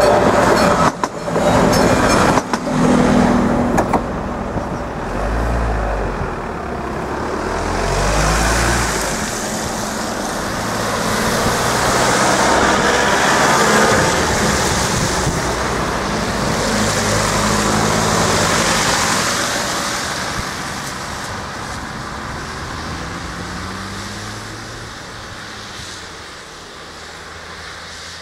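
A blue-and-white diesel railcar rolls over the level crossing in the first few seconds, its wheels knocking over the rail joints. Road vehicles, including a pickup truck, then drive over the crossing, their tyres hissing on the wet road, and the sound fades toward the end.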